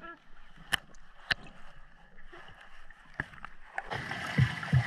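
Muffled underwater sound through a GoPro housing, quiet apart from a few sharp clicks. About four seconds in it gives way to louder open-air noise of wind and lake water at the shoreline.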